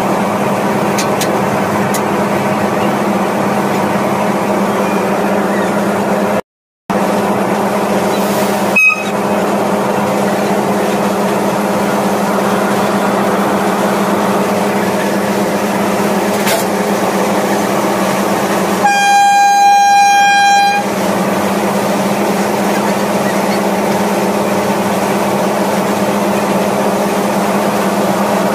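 Steady, loud drone of an electric locomotive standing at the platform during coupling, with a brief total dropout and a click early on. About two-thirds of the way in, a train horn sounds one steady note for about two seconds.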